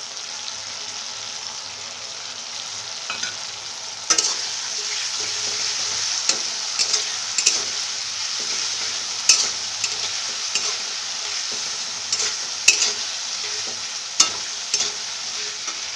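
Sliced onion, capsicum and tomato frying in oil in a pan, sizzling steadily, while a spatula stirs and knocks against the pan in scattered clicks. The sizzle jumps louder about four seconds in.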